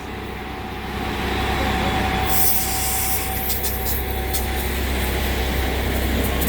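Ready-mix concrete truck's diesel engine running steadily with a low rumble. A brief hiss comes about two seconds in.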